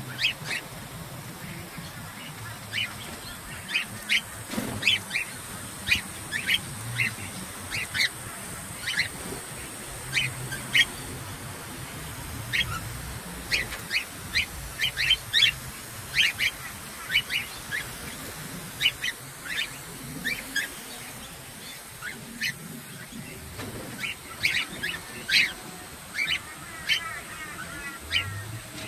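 Cockatiels giving many short, sharp chirping calls in quick, irregular succession, with a few falling whistles near the end, over the steady hiss of a water spray showering them.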